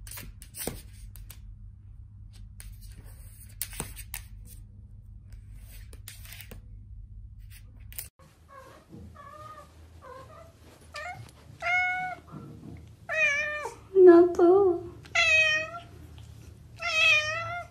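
A domestic cat meowing: about halfway through it starts a string of about ten separate meows that bend up and down in pitch and grow louder. Before that there are only a few faint taps.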